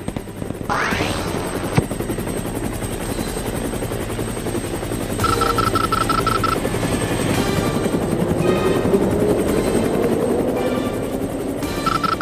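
Cartoon helicopter sound effect: steady rotor chopping as the helicopter lifts and carries a hanging cage. A rising whoosh comes about a second in, and a rapid high beeping sounds twice, once midway and once near the end.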